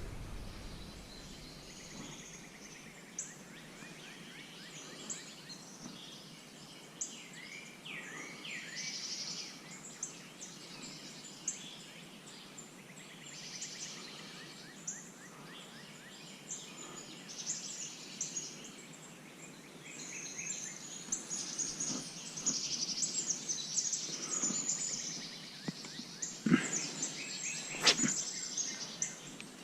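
Several birds singing and chirping over quiet outdoor background noise, with two sharp clicks near the end.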